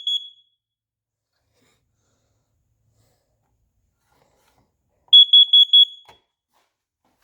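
Smoke alarm sounding under test: two short runs of rapid, high-pitched beeps, one ending just after the start and another about five seconds in, with silence between.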